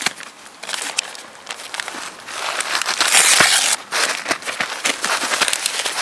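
Paper and dry twigs rustling and crackling as they are handled to lay a campfire, with a louder rush of crumpling paper a little past the middle.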